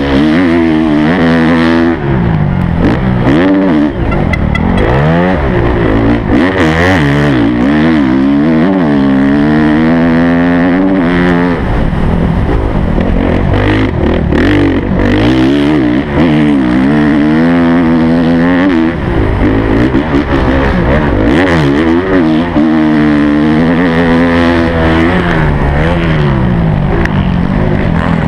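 Honda CRF motocross bike's four-stroke single-cylinder engine, heard close up from an onboard camera, revving hard and easing off over and over, its pitch climbing and falling every second or two as it is ridden at race pace around a dirt track.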